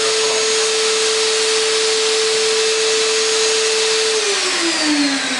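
Shop vacuum running with a steady whine, switched on automatically through a smart power board when the connected router was turned on. About four seconds in, a motor is switched off and winds down, its whine falling in pitch.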